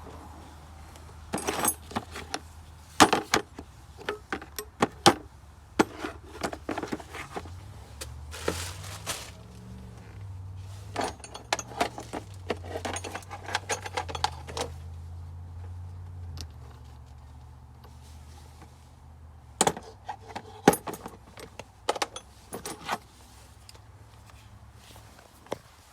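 Metal hand tools clinking and rattling as they are handled, in scattered sharp clicks with busy stretches, and a low hum for several seconds in the middle.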